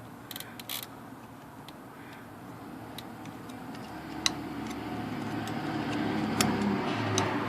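Light clicks and taps of a typewriter ribbon spool and its snap-on cap being handled, a quick cluster near the start and single clicks after. Under them a low rumble grows steadily louder from about the middle.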